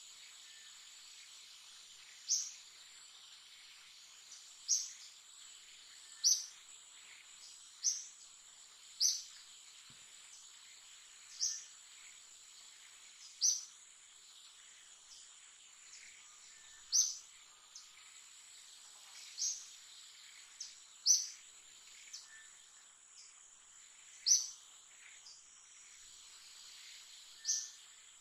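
Forest ambience: a steady high-pitched insect drone, with a short, sharp high chirp repeating irregularly every one to three seconds.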